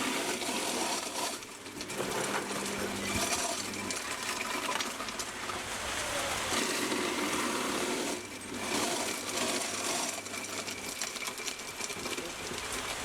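Electric blender running, blending a fruit juice drink, with brief dips in the noise about a second and a half in and again near eight seconds. Rain is steady underneath.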